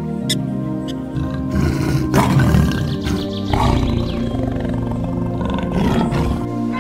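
Tiger calling: rough, noisy roars from about a second and a half in until near the end, over background music with steady held notes.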